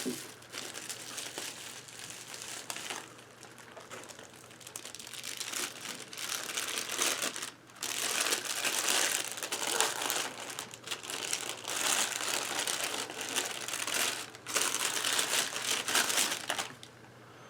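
Packaging wrapping crinkling and rustling as a camera body is unwrapped from its box, in uneven bursts that are busiest in the second half and stop shortly before the end.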